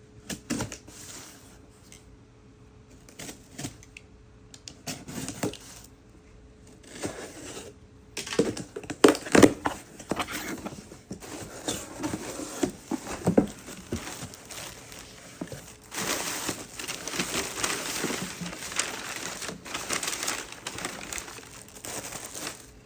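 Product packaging being opened and handled: irregular crinkling and tearing with scattered clicks and knocks, growing denser and steadier in the last several seconds.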